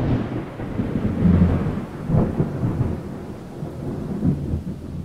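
Deep rolling rumble over a steady hiss, coming in suddenly and slowly dying away, with swells about one, two and four seconds in.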